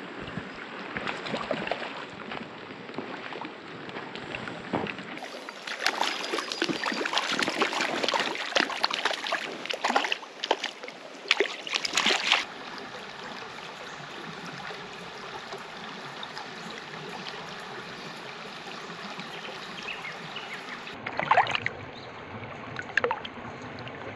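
Shallow creek water running over stones. From about five to twelve seconds in there are repeated splashes as a trout is landed in a landing net in the shallows, with a few more splashes near the end.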